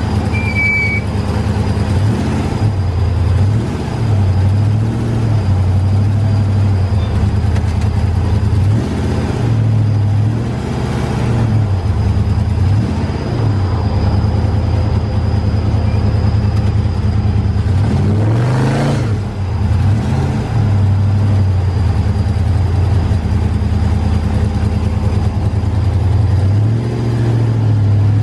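Trophy truck engine running at low speed, heard from inside the cab, its revs dropping and climbing again and again as the throttle is worked. About two-thirds of the way in, a sharper rev rises quickly and falls away.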